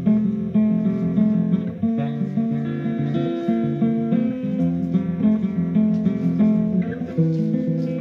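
Music: a guitar playing quick picked notes, with no singing.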